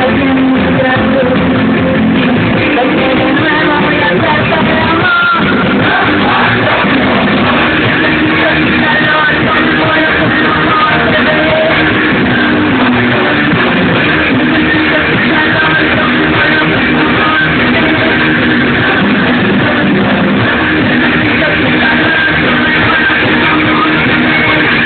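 Live rock band playing loud through a PA: electric guitar and drums, heard from inside the crowd.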